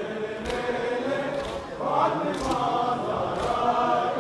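A crowd of men chanting a noha in unison, with their matam chest-beating landing together as a sharp slap about once a second.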